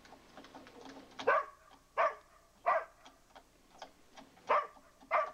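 A dog barking in five sharp barks, the first three about 0.7 s apart, then a pause and two more. The dog is barking at what is taken for a chipmunk hiding in a drain pipe.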